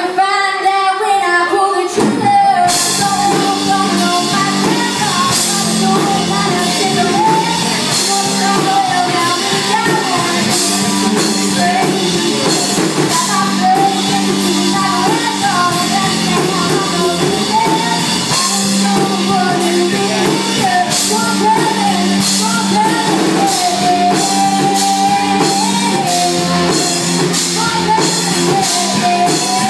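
Live amplified rock band: a woman singing lead over electric guitars and a drum kit. The singer holds a note alone at first, and the drums and cymbals come in about two and a half seconds in.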